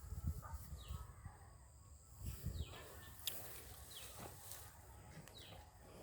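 A bird calling with short falling chirps, about four in a few seconds, over a low rumble and a few soft knocks.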